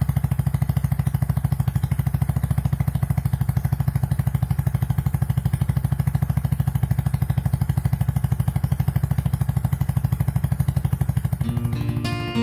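Honda Monkey 125's single-cylinder four-stroke engine idling steadily with even, rapid exhaust pulses. Acoustic guitar music comes in near the end.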